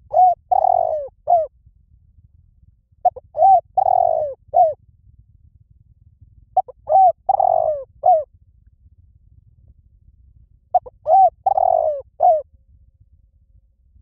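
Spotted dove cooing: four phrases about three and a half seconds apart. Each is a short coo, a quick second note, a longer rolling coo and a clipped final note.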